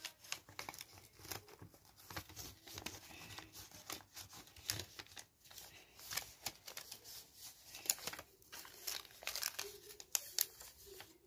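Paper rustling and crinkling in quick, irregular crackles as paper pieces are handled and slid back into a paper envelope.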